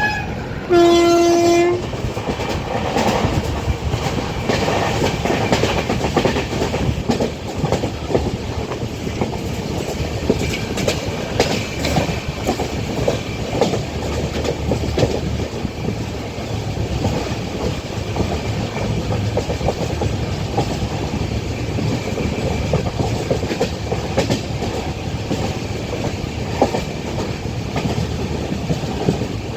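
Passenger train running, wheels clattering over the rail joints with a steady rumble, heard from a carriage window. About a second in, the horn sounds one short, low blast.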